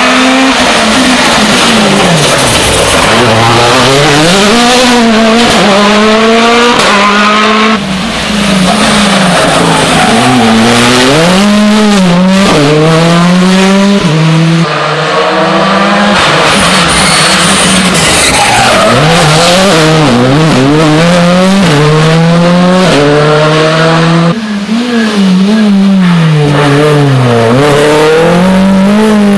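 Rally cars at full race pace, one after another: engines revving hard, pitch climbing through the gears and dropping sharply on lifts and downshifts for corners, with tyre squeal. The sound cuts abruptly between passes three times.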